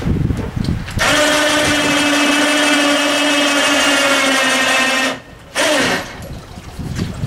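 Electric hoist motor running with a steady hum for about four seconds and stopping. It is then run once more briefly and drops in pitch as it winds down.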